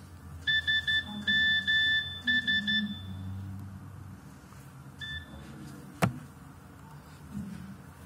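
Nokia 6070's message alert tone: same-pitched electronic beeps grouped three short, two long, three short, the phone's classic 'SMS' in Morse code. A single short beep follows a few seconds later, then a sharp click.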